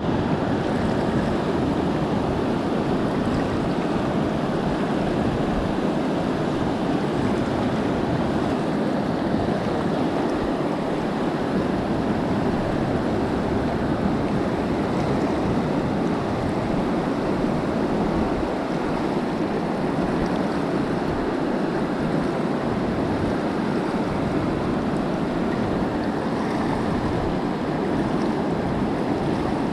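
Steady rushing of the Truckee River as fast water runs over boulders in shallow riffles.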